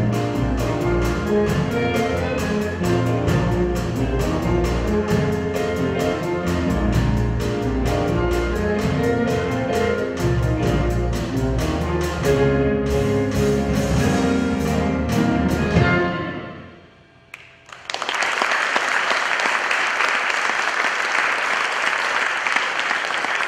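A live band of electric guitars, bass guitar, digital stage pianos and a grand piano playing a song with a steady beat. The music dies away about sixteen seconds in, and after a short hush the audience applauds.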